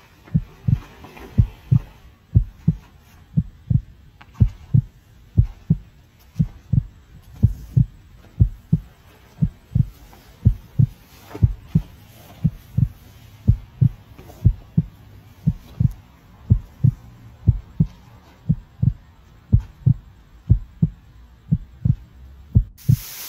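Deep, even heartbeat-like thumping, a little under two beats a second, in the soundtrack. It stops abruptly near the end.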